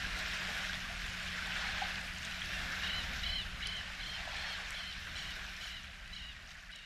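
Outdoor ambience: a steady rushing hiss over a low hum, with a small bird giving a run of short chirps, about three a second, from about halfway through. The sound fades down near the end.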